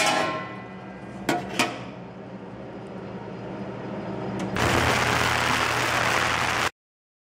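Metal clinks and two light knocks as a pistol barrel goes into a stainless steel cleaning tank, over a low steady hum. About four and a half seconds in, the tank's cleaning equipment switches on with a loud steady hiss and hum, which cuts off suddenly near the end.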